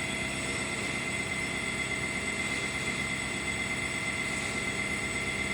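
Sawmill machinery running steadily: a constant mechanical hum with a steady high whine, unchanging throughout.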